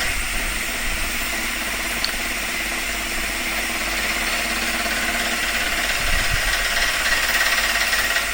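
CNC milling machine running with a steady mechanical hum and a high whine.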